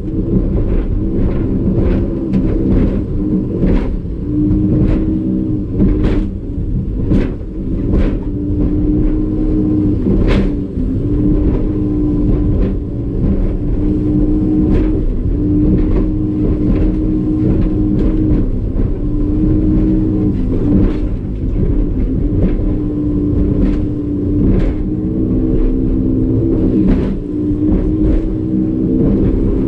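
Evinrude E-Tec 150 two-stroke V6 outboard running hard at racing speed, its note wavering up and down as the revs shift while the boat rides over waves. Repeated sharp knocks and a heavy rumble run through it, typical of a hull slamming through chop.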